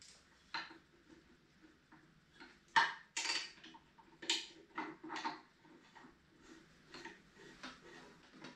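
Metal light bracket and bolt hardware clinking and clicking as it is fitted between the handle brackets of a drum floor sander: a string of light taps and knocks, the loudest about three seconds in.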